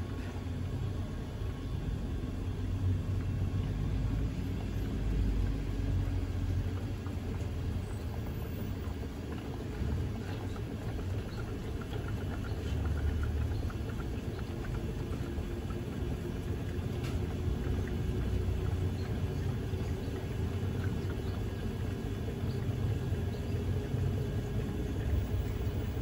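Panasonic NA-FD10X1HRM top-load inverter washing machine on its spin cycle: the tub of wet laundry spins with a steady low rumble. Over it runs a faint motor whine that slowly rises in pitch as the spin speeds up.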